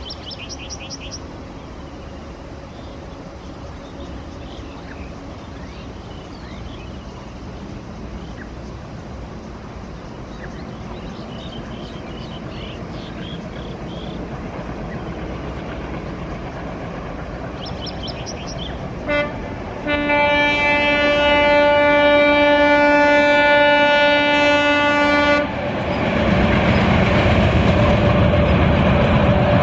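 ALCO diesel locomotive approaching, its engine rumble growing steadily louder, with a few bird chirps early on. Just before two-thirds of the way through it gives a short horn blip, then holds a long horn blast for about five seconds; the train then passes at full speed with loud wheel and engine noise.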